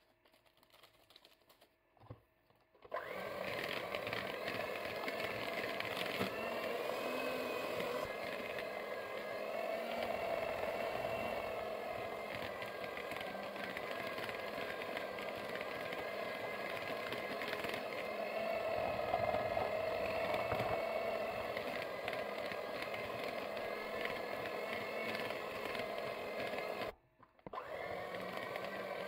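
Moulinex electric hand mixer running steadily, its twin beaters whipping butter and condensed milk into a cream in a plastic bowl. It starts about three seconds in, and near the end it stops for a moment and then starts again.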